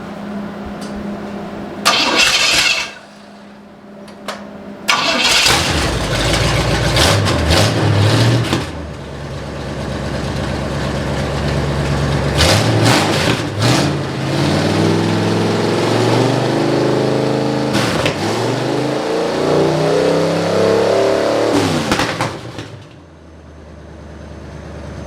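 Demolition derby car's Cadillac V8 being started: a brief burst about two seconds in, then it fires about five seconds in and is revved up and down repeatedly before cutting off near the end.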